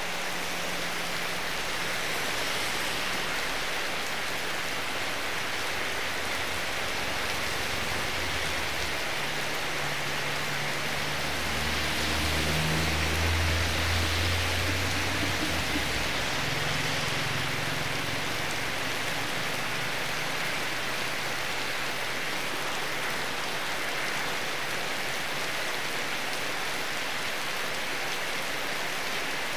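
Heavy rain pouring steadily onto the road and the awning overhead. Midway through, a minibus drives past on the wet road, and its low engine hum swells and fades.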